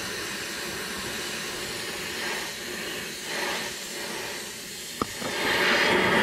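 Oxy-fuel cutting torch hissing steadily as it cuts through a steel beam. About five seconds in there is a single sharp click, then the hiss grows clearly louder.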